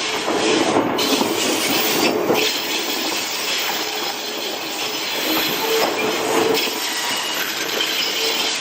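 Sotetsu 12000 series railcars being hauled past on a delivery run, running over the rails with the wheels squealing in a steady tone that comes and goes.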